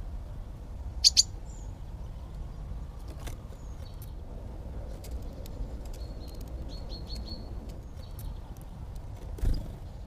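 Small songbirds calling at a seed feeder. Two loud, sharp chirps come about a second in, then a run of short, high, repeated notes later on. Light taps are scattered through, a thump comes near the end, and a low steady rumble sits underneath.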